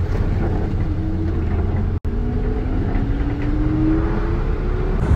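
Old Chevrolet pickup's engine heard from inside the cab while driving, with a steady low rumble. After a momentary dropout about two seconds in, the engine note climbs steadily as the truck accelerates.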